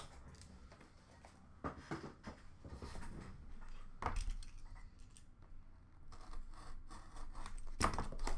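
Hands handling trading cards and small cardboard card boxes: scattered soft scrapes, rubs and light knocks, with a cluster of handling noise about 2 s in, another about 4 s in, and the loudest near the end.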